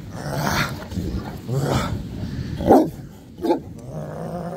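Black Newfoundland dog giving several deep barks and grumbles, the loudest a falling bark near the middle, then a longer low grumble near the end: demand barking, the dog seeking its owner's attention and play.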